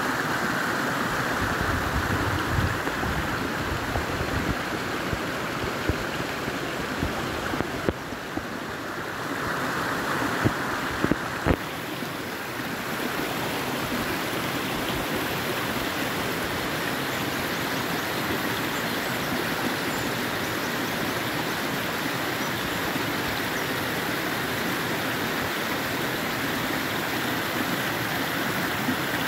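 Small stream splashing down a short cascade over rocks, a steady rush of water. A few brief knocks come about ten to twelve seconds in.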